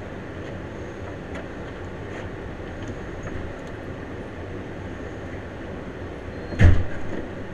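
Steady rumbling background noise with a few faint clicks as hands fit a metal undermount drawer slide under a wooden drawer, then one sharp knock near the end as the slide and bracket are set against the drawer.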